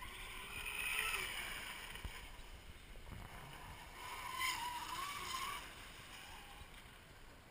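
Radio-controlled speedboat's motor whining faintly, its pitch wavering as the boat runs across the water; it swells about a second in and again around four and a half seconds.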